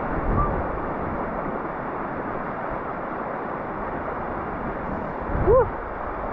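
Small mountain creek water rushing steadily, with one short rising-and-falling vocal sound about five and a half seconds in.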